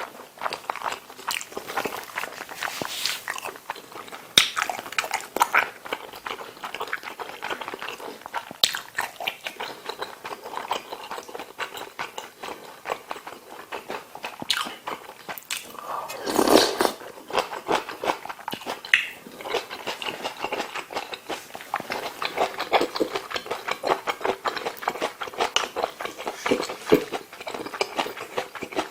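Close-miked eating sounds of a person chewing kimchi stew, ramen noodles and rice: a steady run of wet smacking and chewing clicks, with one louder, longer burst about two-thirds of the way through.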